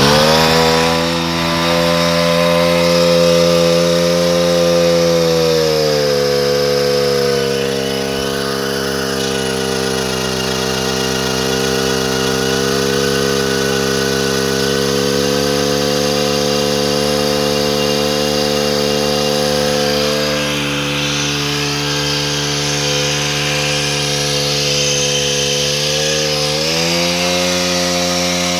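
Rail drilling machine with an annular broach cutter drilling a hole through a steel rail. The motor speeds up at the start, and its pitch drops about six seconds in as the cutter bites and takes the load. It runs steadily while cutting, then its pitch rises again near the end as the cutter breaks through, and the machine runs down.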